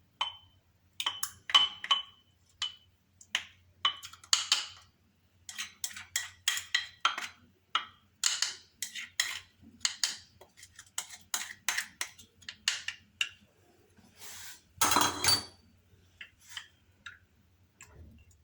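A spoon clinking and scraping against a glass container while a thick mashed garlic and olive oil mixture is worked. Many short, irregular clinks, some with a brief ring, and one longer scrape about three-quarters of the way through.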